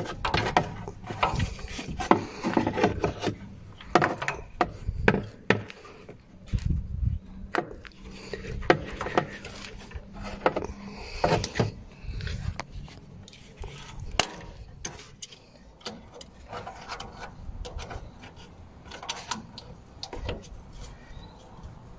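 A rubber radiator hose being worked on its pipe while a spring hose clamp is fitted: irregular rubbing, scraping and small metal clicks, busiest in the first half.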